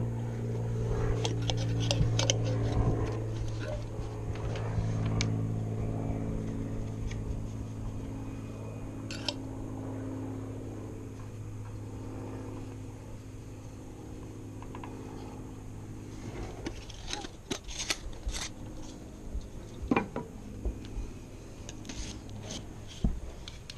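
A running engine hums low and steady, fading away gradually. Scattered light clicks and scrapes follow in the last several seconds.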